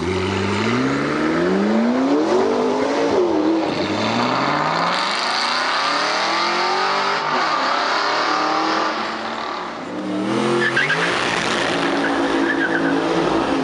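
McLaren MP4-12C's twin-turbo V8 accelerating hard away, its revs climbing in long sweeps broken by several upshifts. About ten seconds in, a second supercar engine revs and pulls away close up.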